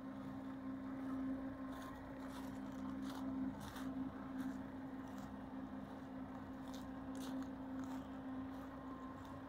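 A steady low engine hum, unchanging in pitch, with irregular crunching steps on gravel over it.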